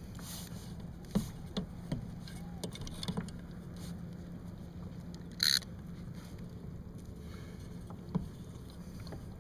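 Fishing reel and rod being handled on a kayak: scattered sharp clicks and knocks, and one short hissing burst about five and a half seconds in, over a steady low hum.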